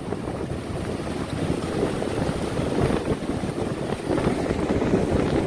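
Wind buffeting the microphone over the steady rush of surf breaking on the beach.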